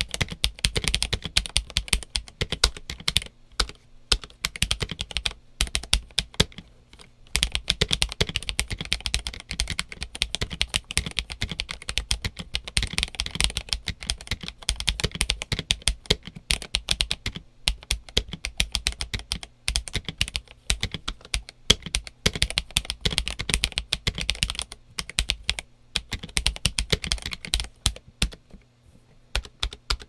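Typing on a stock Redragon K631 Pro SE mechanical keyboard with linear switches and OEM-profile shine-through ABS keycaps: a fast, continuous stream of keystrokes with a deep "thock". There are brief pauses about four, six and seven seconds in, and slower, separate key presses near the end.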